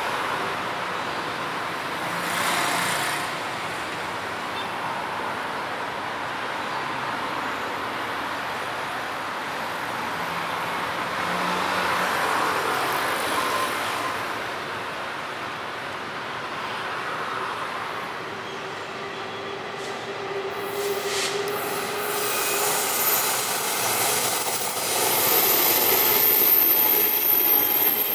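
Taiwan Railway E400-class electric locomotive (GE E42C) hauling a train of passenger coaches, approaching against steady background noise and passing close in the last several seconds. The rumble of the train grows louder there, with a high thin whine near the end.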